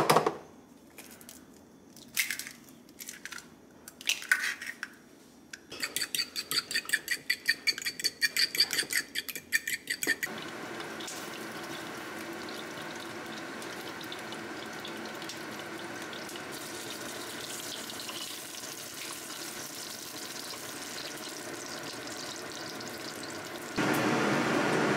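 Eggs cracked against the rim of a ceramic bowl in a few sharp taps, then beaten in the bowl with quick even strokes, about four or five a second. After that, beaten eggs sizzle steadily in a nonstick frying pan as they are stirred with a spatula. Near the end a louder steady noise comes in.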